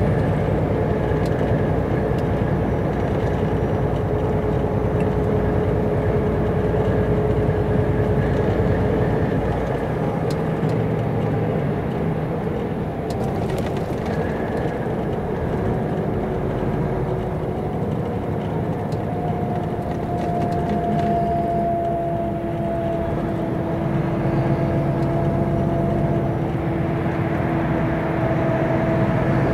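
Volvo FH truck heard from inside its cab while cruising on the motorway: steady engine and road noise with a thin whine that slowly shifts in pitch.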